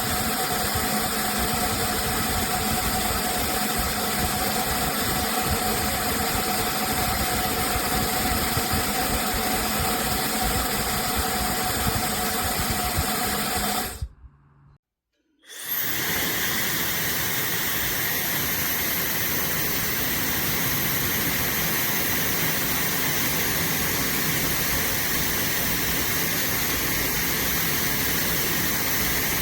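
OSOU 110,000 RPM high-speed hair dryer running, a steady rush of air with a thin whine over it. About fourteen seconds in it is switched off for a second and a half, then restarts with a short rising whine and runs on as a more even hiss.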